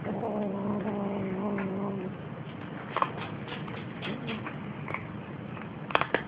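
Kitten growling low and steady over its dry food for about two seconds, guarding the plate. Then crunching and clicking of dry kibble as the kittens eat, with a sharp click about three seconds in and a quick cluster of louder clicks near the end.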